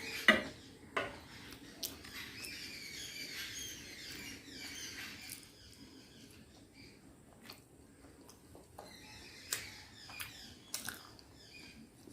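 Close-up eating sounds from a mukbang of momo dumplings and Maggi noodles: wet chewing and small squeaky mouth noises, with a few sharp clicks, loudest just after the start and again twice near the end.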